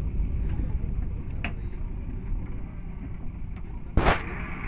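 JCB 3DX backhoe loader's diesel engine running with a steady low rumble as the backhoe arm works, with one sharp knock near the end.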